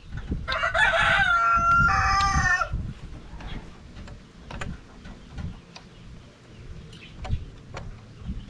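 A rooster crows once near the start, a loud call of about two seconds in two parts. After it come scattered light clicks and taps as the plastic bracket of the solar light is worked onto the bamboo pole.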